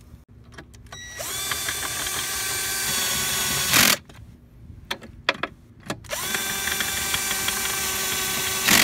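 Cordless drill with a socket on an extension driving bolts tight, run twice for about two and a half seconds each. The motor whirs up in pitch at the start of each run and ends in a short loud rattle. A few sharp clicks come in the gap between the runs.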